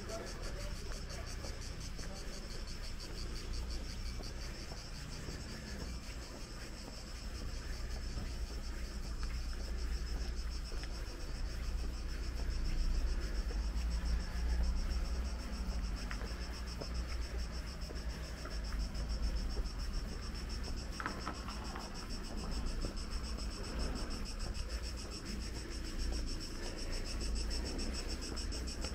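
Steady chorus of insects shrilling, a high, fast-pulsing buzz that never stops, over a low rumble.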